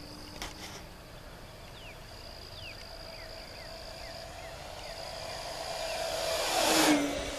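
Electric RC ParkZone F4U-1A Corsair making a low fast pass: its brushless motor and propeller whine grows steadily louder as it approaches, peaks about seven seconds in, and drops in pitch as it goes past.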